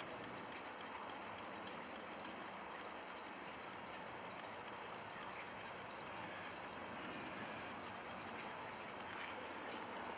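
A steady, even hiss like running water, with a few faint ticks.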